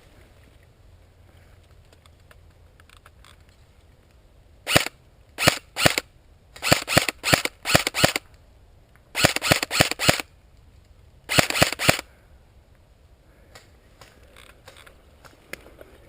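Airsoft guns firing, a few single shots and then quick strings of sharp cracks, between about five and twelve seconds in.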